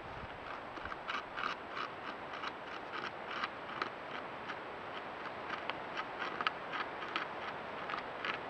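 Beaver gnawing into the trunk of a large aspen: quick, irregular scraping and crunching bites, several a second, over the steady hiss of a trail camera's microphone.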